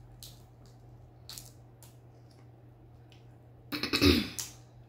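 Small soft clicks and squishes of a cooked shrimp's shell being pulled apart by hand. Near the end, a loud short throaty sound from the eater, a burp or throat clearing.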